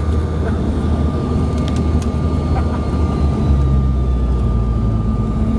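Cabin noise of a CRJ-700 regional jet with its CF34 turbofan engines running: a steady low rumble under a thin, steady high whine, with a few faint ticks.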